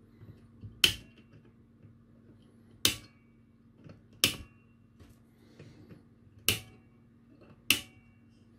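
Flush side cutters snipping excess component leads off the solder side of a small circuit board: five sharp clicks, one per cut, a second or two apart.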